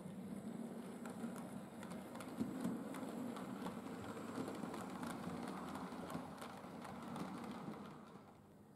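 Model train running past, a small tank locomotive hauling coaches: a steady motor hum with frequent clicks and rattle of the wheels on the track. It dies away about eight seconds in.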